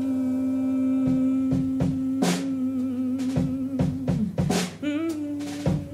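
Live jazz band playing: one long held note lasts about four seconds over drum-kit fills and cymbal crashes. A second, slightly higher note follows near the end.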